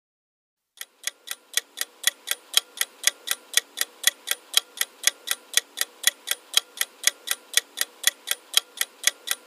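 Ticking-clock countdown sound effect timing a quiz answer, with sharp even ticks at about four a second, starting about a second in.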